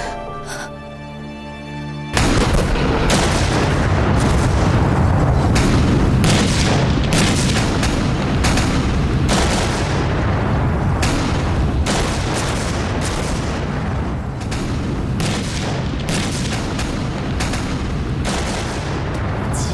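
Quiet music, then about two seconds in a sudden loud battle barrage begins: a constant deep rumble of explosions with sharp blasts and shots about once or twice a second.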